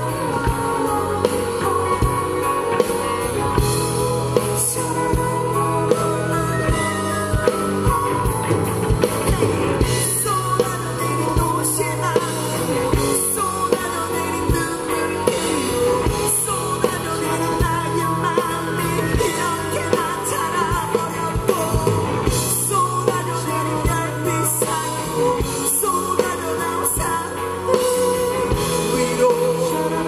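Live rock band playing, with a male lead singer singing into a handheld microphone over electric bass, guitar and drums with regular cymbal hits.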